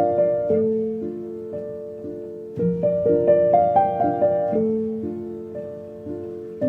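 Background music: a gentle solo piano phrase of single notes over held bass notes, which starts again about two and a half seconds in.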